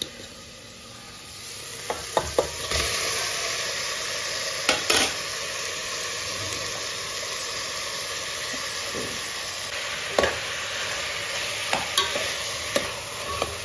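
Marinated chicken pieces dropped into hot onion-tomato masala in a pressure cooker, sizzling steadily from about three seconds in. A spoon clicks and scrapes against the bowl and the cooker now and then as the chicken is stirred in.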